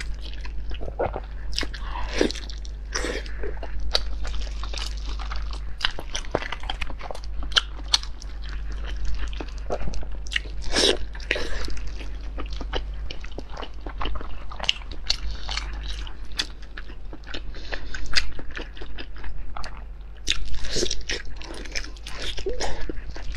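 Close-miked eating sounds: soft bites, chewing and wet mouth clicks as pieces of da menzi, a Northeastern Chinese starch dish with a meat filling, are eaten. The chewing comes in irregular flurries, loudest near the middle and toward the end.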